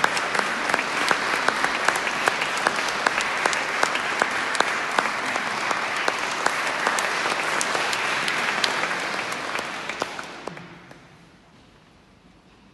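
Audience applauding, with many sharp individual claps standing out close by; the applause fades away about ten seconds in.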